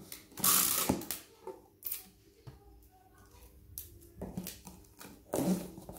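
Sticky tape pulled off the roll of a desktop tape dispenser and torn off, in several short noisy bursts, the loudest about half a second in.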